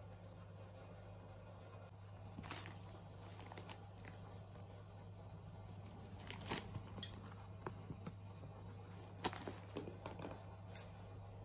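A cat scuffling on carpet as it paws and bites a plastic catnip packet: scattered soft rustles and crinkles with a few sharper taps, the loudest about seven seconds in.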